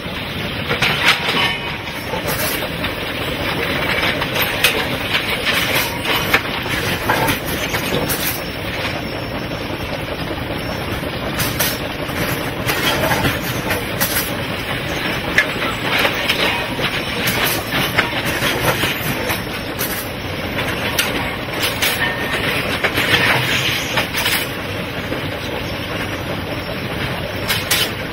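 Track-renewal train at work: a steady machinery noise with frequent irregular clanks and knocks as concrete sleepers are handled and laid under the rails.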